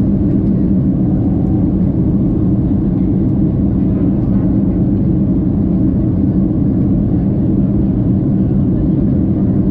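Steady, low-pitched cabin noise of a jet airliner in flight: the turbofan engines and rushing air, heard from inside the cabin.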